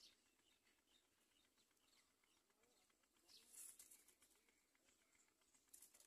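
Very faint sounds at a great myna's nest of dry palm fibre: soft, scattered chirps from the adult and its nestlings, with a brief scratchy rustle of nest material about three and a half seconds in and another near the end as the bird shifts.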